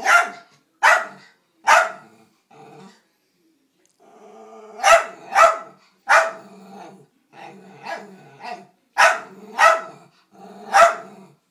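Dachshund barking at a vacuum cleaner, sharp barks in three bursts of about three each, with low growling in the pauses between.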